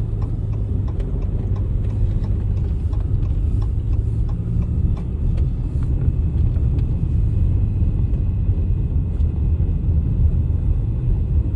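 Steady low rumble of a vehicle driving on snowy roads, with a few faint ticks.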